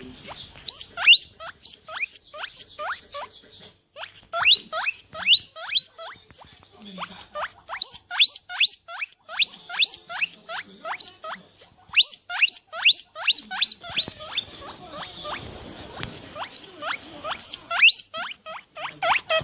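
An animal's rapid, repeated high squeaks, each one sweeping sharply upward in pitch, about two to three a second with a couple of short breaks.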